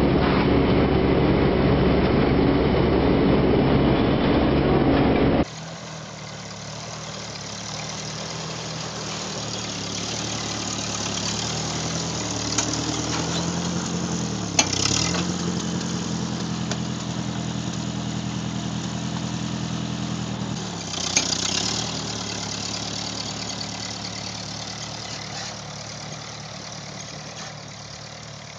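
Heavy farm machinery running loud. Then an abrupt change to a small vintage tractor's engine running steadily while pulling a plow. Its pitch dips briefly twice, each dip with a sharp click, and it fades toward the end.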